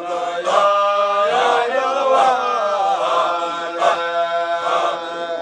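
Group of men chanting a Qadiriyya Sufi dhikr together, holding long drawn-out notes that shift in pitch.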